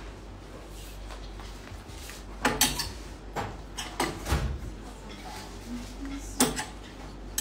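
About half a dozen sharp clacks and knocks at uneven intervals, the loudest a couple of seconds in and again near the end.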